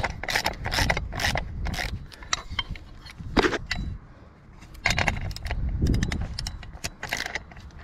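Irregular metallic clinks and light scraping of small hardware: bolts and tension washers being handled and fitted as new blades are bolted onto a lawn mower blade carrier. The clinks come thick at first, with one sharp knock about three and a half seconds in, a short lull, then more clinking.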